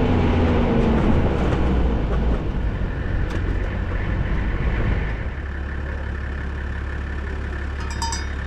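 Toyota Land Cruiser Troop Carrier's engine running with the revs dropping, settling to a steady idle about five seconds in. Near the end, several ringing metallic strikes like a bell clanking.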